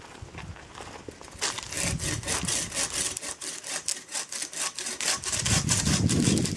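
Hand pruning saw cutting a green eucalyptus branch in quick, even back-and-forth strokes, starting about a second and a half in. Near the end a louder, deeper rustling takes over.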